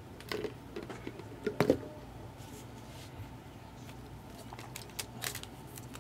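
A few light clicks and taps of small objects being handled on a desk, the loudest a double tap about one and a half seconds in, with more near the end.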